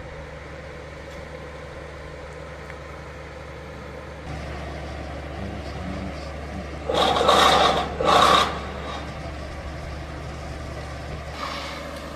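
Heavy vehicle's engine idling steadily, with two loud short bursts about a second apart near the middle.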